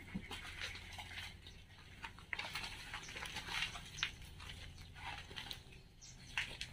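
Footsteps on loose stone and rock debris: irregular crunches, scuffs and small clicks of stones shifting underfoot.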